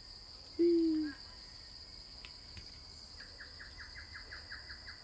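Forest ambience: a steady high insect drone, with one short low hoot about half a second in and a quick run of small descending chirps, about seven a second, near the end.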